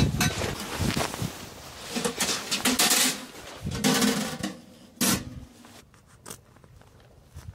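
Handling noises as a small metal tent stove is carried in and set down: footsteps on the groundsheet, fabric rustling and metal clunks, with a sharp knock about five seconds in. Quieter near the end.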